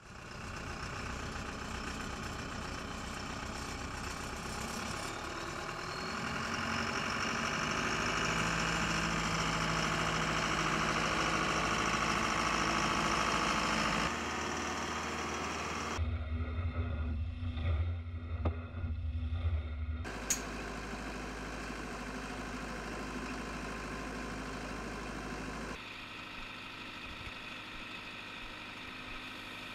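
Engine of a track-mounted drilling rig running steadily, heard in several clips that change abruptly every few seconds.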